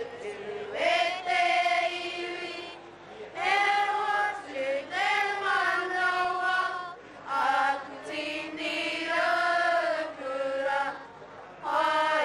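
A group of children singing together in unison, in short phrases with brief breaks between them.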